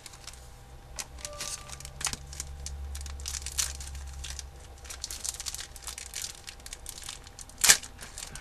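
Hockey trading cards and their pack wrapper being handled: irregular rustling and crinkling, with a sharp snap near the end.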